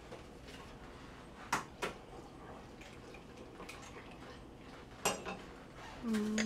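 Sharp taps and clinks against a bowl as eggs are cracked: two knocks about a second and a half in, and a rattling clink about five seconds in. A voice hums briefly at the end.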